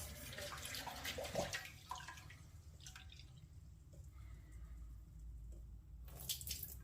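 Barley grits being rinsed in cold water: faint sloshing and dripping with small scattered clicks, quieter through the middle.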